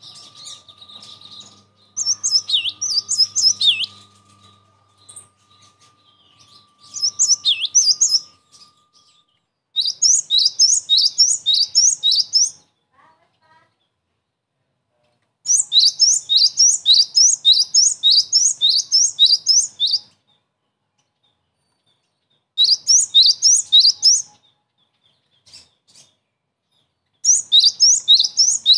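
Cinereous tit singing: bouts of loud, high whistled notes, each sweeping upward and repeated a few times a second, broken by short pauses. The first two bouts are more varied, with some falling notes.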